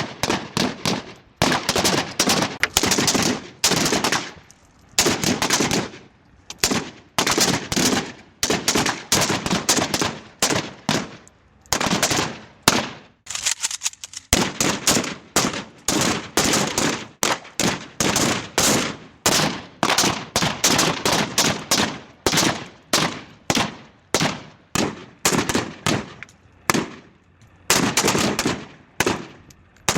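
Gunshot sound effects: a string of single shots and rapid automatic-fire bursts, one clip after another with short gaps, each shot dying away quickly.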